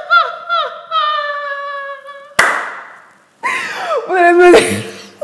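A woman laughing heartily: a few short rising-and-falling 'ha' notes, then a long high-pitched squeal of laughter. A sharp smack sounds about two and a half seconds in, followed by another loud burst of laughter.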